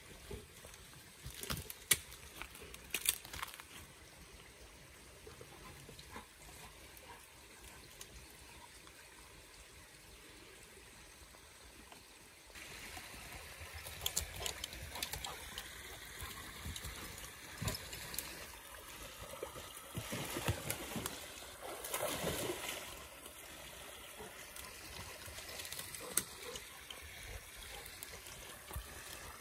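Shallow woodland stream trickling, louder from about halfway through, with scattered sharp snaps and rustles of twigs and undergrowth.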